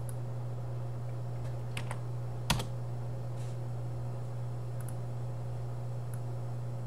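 A few separate keystrokes on a computer keyboard, one sharper than the rest about two and a half seconds in, over a steady low hum.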